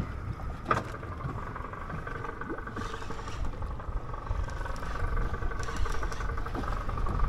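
Motorboat engine running steadily, a steady whine over a low rumble, with a single sharp knock less than a second in.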